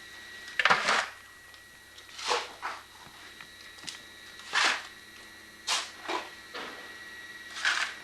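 Digging in wet mud and debris: about eight short scraping noises at irregular intervals.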